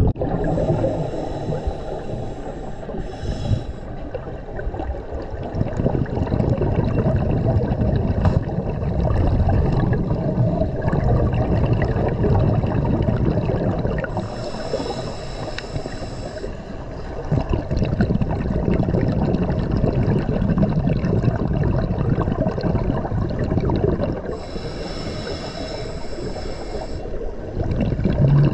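Scuba regulator breathing heard underwater: exhaled bubbles rumbling and gurgling in slow surges, with a brief high hiss twice, about halfway through and near the end.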